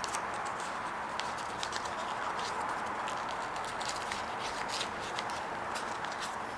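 Sheet of paper being handled and creased by hand: irregular small crinkles and taps over a steady hiss.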